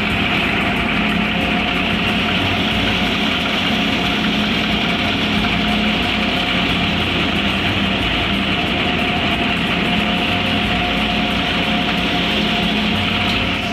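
Tractor-driven wheat thresher running steadily at work. Its spinning drum and pulleys make a continuous loud drone with a hiss on top.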